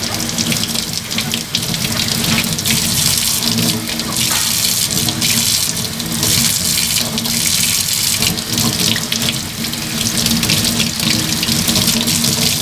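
Warm water running from a sink tap and splashing unevenly over a small puppy as the soap is rinsed off her.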